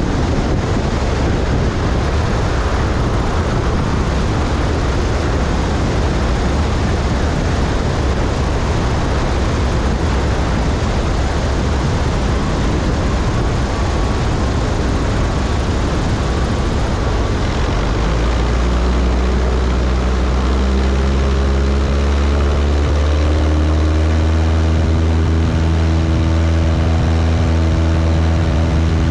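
180 hp Cessna 172's engine and propeller running in flight, heard from a wing-strut camera: a heavy, even rush of airflow. From about 18 seconds in, the engine's steady low drone stands out clearly above the rush.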